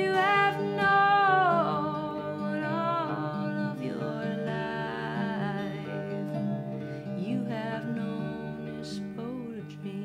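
Fingerpicked acoustic guitar with a woman's voice singing a gliding melody over it, strongest in the first few seconds and returning in shorter phrases later.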